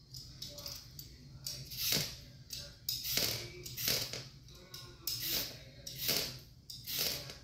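Hand-held vegetable peeler scraping strips off a raw carrot in quick repeated strokes, nearly two a second.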